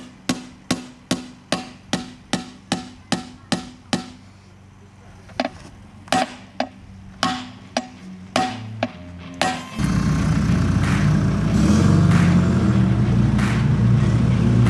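Sharp hammer-like blows ringing on metal, about two and a half a second at first, then slower and uneven. About ten seconds in, loud music with electric guitar comes in.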